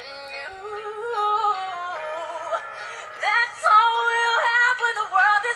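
A woman singing along to a song, holding long notes that waver in pitch. Little deep bass sits underneath.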